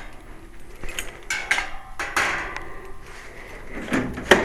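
Handling noise: several clattering knocks and scrapes of hard objects, the loudest knock near the end.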